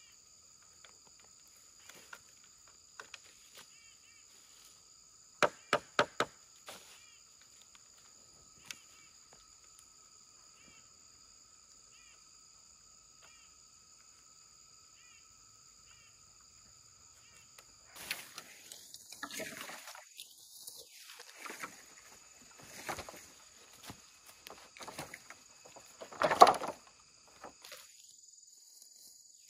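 Bamboo poles knocking together four times in quick succession as a bundle is handled, over a steady high insect drone. Later, dry bamboo leaves rustle and crunch underfoot as the bundle is lifted and carried, with one louder knock-and-rustle near the end.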